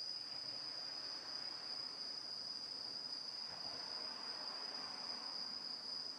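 Quiet room ambience with a steady high-pitched tone over faint hiss, fading out near the end.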